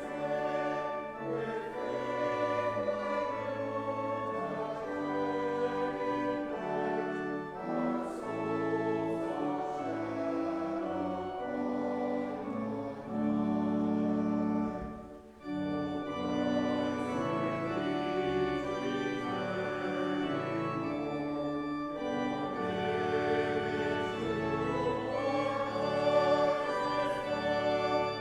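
A church hymn sung by a congregation with organ accompaniment, with a brief pause about halfway through.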